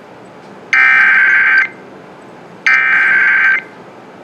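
Emergency Alert System SAME header: buzzy digital data tones sent in bursts just under a second long, two in this stretch with about a second of hiss between them. This is the coded header repeated at the start of an EAS alert, here opening a flash flood warning.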